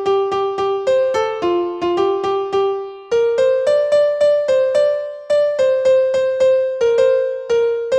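Background music: a piano-like keyboard playing a simple melody of quick, evenly spaced struck notes that ring and fade.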